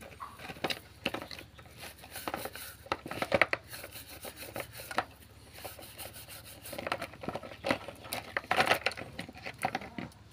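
A brush scrubbing a greasy motorcycle roller chain in a basin of engine-cleaner liquid: irregular rubbing strokes, coming thickest about three seconds in and again near the end.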